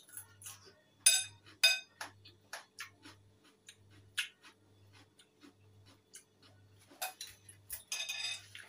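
Metal spoon clinking and scraping against a white ceramic bowl of salad: two loud ringing clinks about a second in, then lighter taps through the middle and a quick run of clinks near the end.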